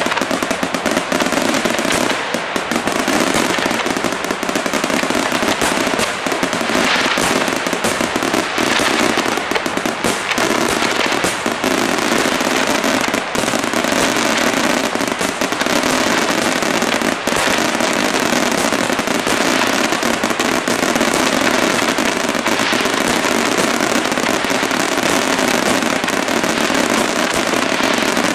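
Aerial firework shells bursting in a dense, unbroken barrage: a rapid run of bangs and crackling, overlapping without a pause.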